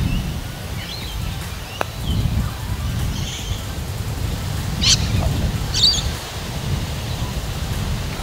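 Birds chirping several times over a steady low wind rumble on the microphone. A single sharp click of a putter striking a golf ball comes about two seconds in.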